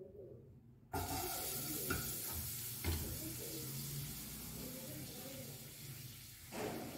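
A steady hiss that switches on abruptly about a second in and carries on, with a few light clinks over it.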